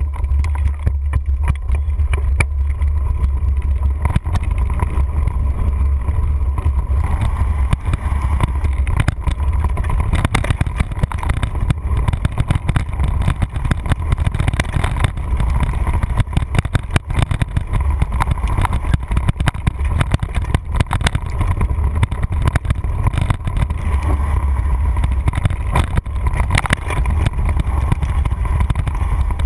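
Wind buffeting a handlebar-mounted camera's microphone while a mountain bike rides a rough dirt singletrack: a steady low rumble with constant small knocks and rattles from the bike and mount jolting over bumps.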